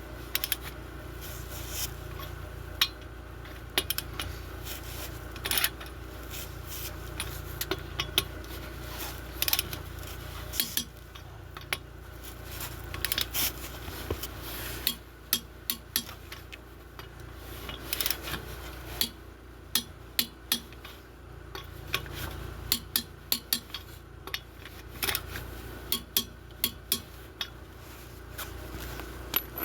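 Metal tools and hardware clinking and scraping in quick, irregular knocks during a roadside tire change, over a low, steady hum.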